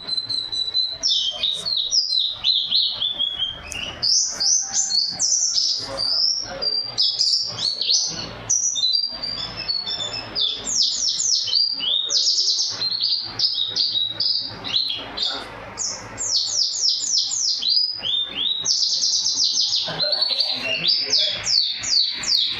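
White-eye (pleci) singing a long, continuous song of rapid high trills and quick falling sweeps, its phrases filled with mimicked canary song.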